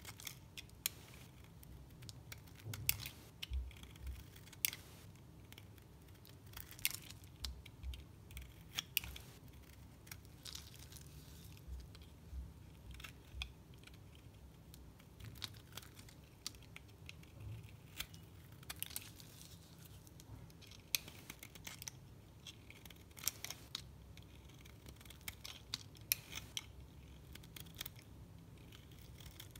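Snap-off utility knife blade cutting and scraping into a bar of dry soap, shaving off flakes in irregular sharp crackles and scrapes.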